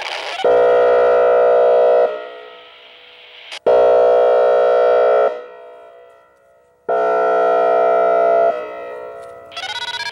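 Whelen Vortex R-4 electronic outdoor warning siren sounding its airhorn tone: three loud horn blasts of about a second and a half each, every one a chord of steady tones fading off in echo before the next. Near the end the siren switches to a quicker stepping tone, the start of its hi-lo signal.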